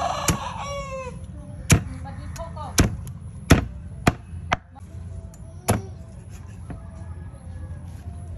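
A meat cleaver chopping through a whole raw chicken on a round wooden chopping block: about seven sharp, irregularly spaced chops over the first six seconds. A rooster crows during the first second.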